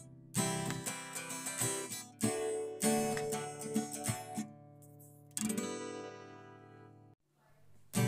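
Acoustic guitar tune playing as background music: strummed chords, the last one left to ring and fade out, with a brief pause near the end.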